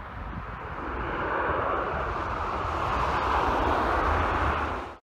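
Airbus A330-243 freighter's Rolls-Royce Trent 700 jet engines rumbling as it rolls out on the runway after touchdown, swelling about a second in and staying loud, then cut off abruptly at the end.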